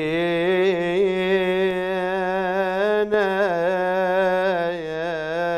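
A man's voice singing solo in maqam Bayat: a radood's long, ornamented opening phrase held on a vowel, with a short break for breath about three seconds in.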